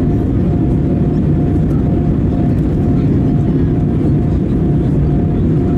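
Steady, loud cabin noise of an Airbus A320-214 heard from a window seat: CFM56 engine and airflow noise, with a faint high tone that comes and goes in an even rhythm.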